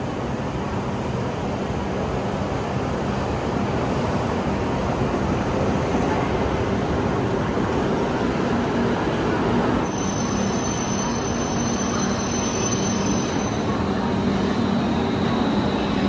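E5 series Shinkansen pulling slowly into a station platform: the steady rush of the train with a low hum under it. A thin high whine comes in for a few seconds past the middle.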